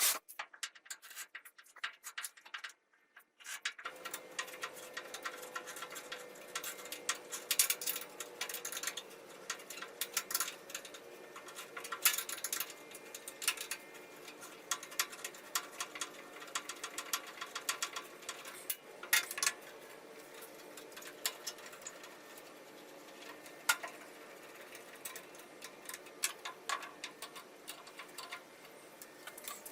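Irregular clicks and taps of hand tools working on metal fasteners, over a faint steady background hum that starts about four seconds in.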